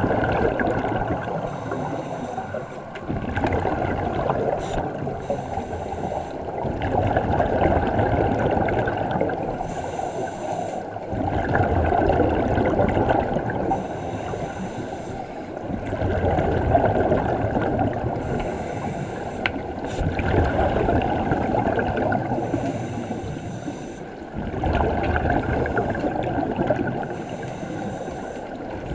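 Scuba regulator exhaust bubbles gurgling, heard underwater, swelling in surges every few seconds with the divers' exhalations.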